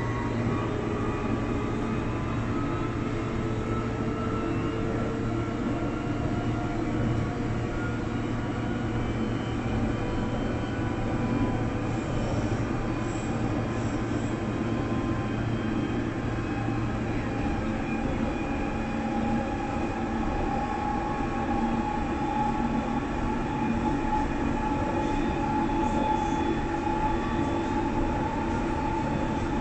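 London Underground District line train running between stations: a steady rumble of wheels on track with electric traction motor whine that slowly shifts in pitch. A low hum drops out about two-thirds of the way through.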